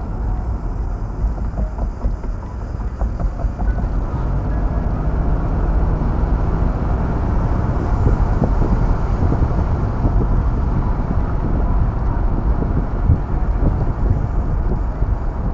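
Mercedes SL500 R129's M119 5.0-litre V8 running as the car drives along at road speed, heard from the driver's seat with road and wind noise. The engine is running smoothly, its misfire and hesitation cured by new distributor caps.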